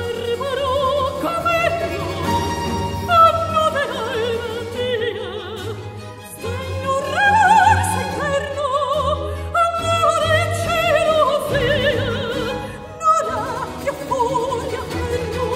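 Soprano singing a baroque opera aria with wide vibrato, over a period-instrument baroque orchestra of strings with theorbo and harpsichord continuo. The vocal line breaks briefly between phrases about six and thirteen seconds in.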